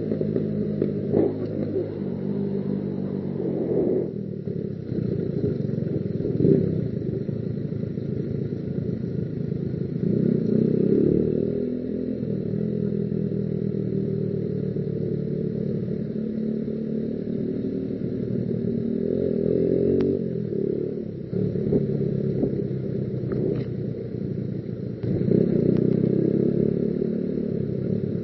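Motorcycle engine running while riding, its note rising and falling with speed and gear changes, with a few sharp clicks along the way.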